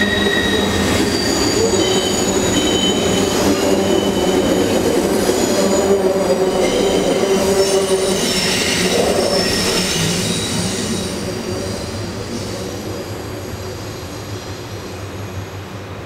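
Tail end of a freight train of covered hopper cars rolling over a steel trestle bridge, its wheels squealing in steady high tones over the rumble of the cars. The sound fades steadily from about two-thirds of the way in as the train draws away.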